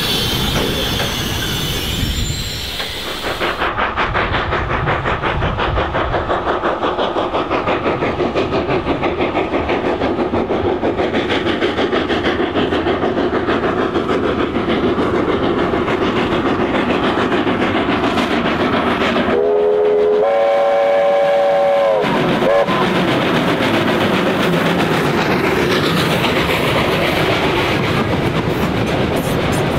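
NZR Ww class 4-6-4T steam locomotive working a train, its exhaust beating in a quick, even rhythm. About two-thirds of the way through, its steam whistle sounds a chord for about two and a half seconds, stepping up in pitch just after it starts, before the chuffing carries on.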